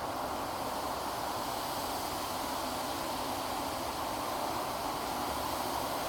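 Steady rushing noise of distant vehicles, even and unbroken, with no clear tones or knocks.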